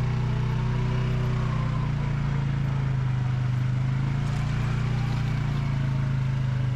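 A vehicle engine running at a steady speed: a loud, even, low hum that does not change in pitch.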